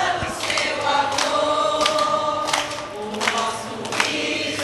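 A group of people singing together, with hand claps keeping a steady beat about every two-thirds of a second.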